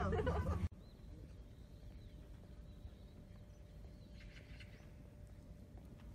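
Street noise of voices and traffic cuts off abruptly under a second in, giving way to faint, quiet outdoor background with a few thin bird chirps, a small cluster of them about four seconds in.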